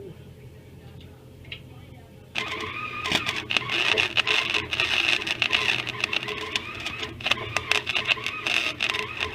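Flux-core wire welder arc crackling steadily as a bead is run on a steel patch, starting suddenly a couple of seconds in.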